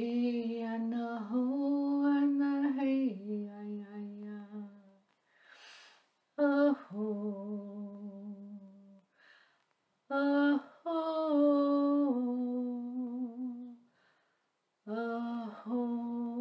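A woman's voice chanting in long, held tones that step between a few notes, in four sustained phrases with short breaths between them.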